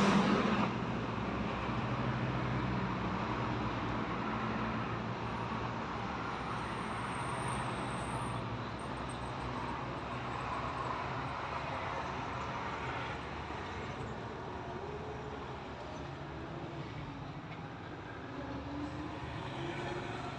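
Vauxhall Astra engine running; the car has a misfire.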